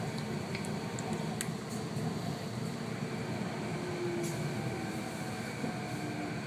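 SkyTrain car running and slowing into a station, heard from inside: a steady rumble and hum of wheels and drive, with a few faint ticks early on and a faint whine in the second half that steps down in pitch.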